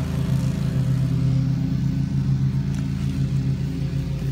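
Lawn mower engine running steadily, a constant low drone.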